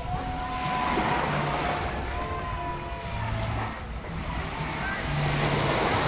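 Small waves washing up on a sandy beach, the wash swelling about half a second in and again near the end, with wind on the microphone.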